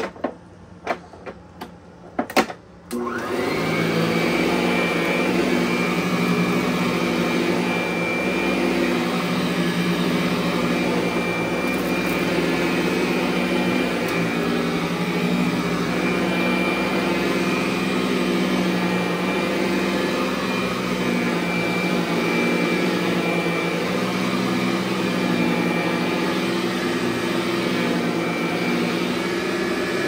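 Montgomery Ward-branded Eureka upright vacuum cleaner: a few clicks, then the motor switches on about three seconds in, its whine rising to speed, and it runs steadily as the vacuum is pushed over carpet.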